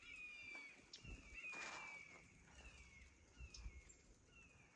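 A bird calling faintly, a run of short whistled notes that each slide downward, about one a second, with soft low thuds of footsteps on the trail.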